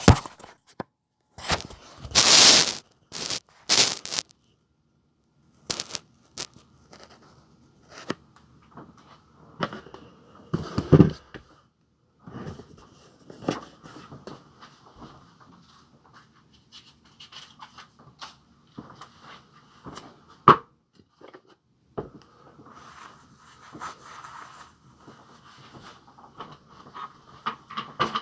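Close-up handling noises: irregular scrapes, rustles and sharp clicks or knocks, with a louder rustling burst about two seconds in.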